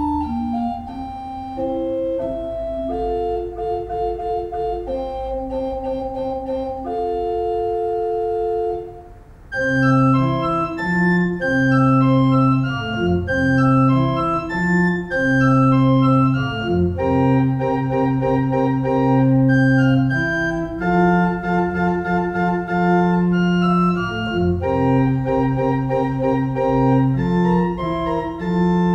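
Small pipe organ playing a baroque minuet in F major: a lighter passage of upper notes, a brief break about nine seconds in, then louder, fuller playing with bass notes underneath.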